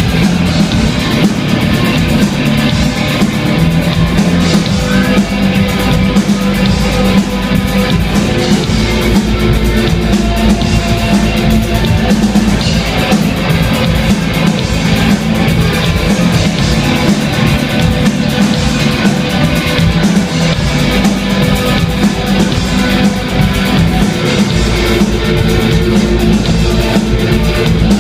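Instrumental rock band playing live: guitar over a drum kit, loud and dense without a break.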